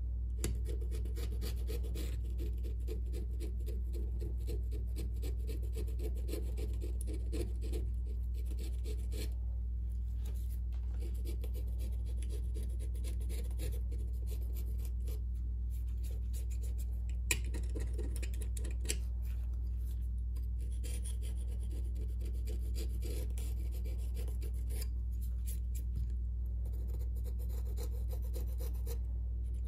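Thin metal pick scraping and rubbing along the edge of a Samsung Galaxy Note 9's opened frame, an irregular scratching with a few small clicks, over a steady low hum.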